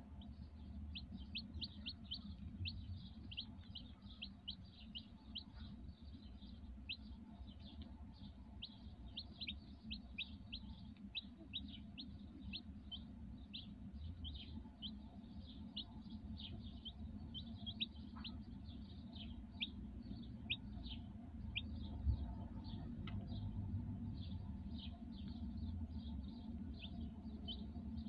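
Newly hatched chicks peeping continuously around a broody hen, short high falling peeps coming several times a second.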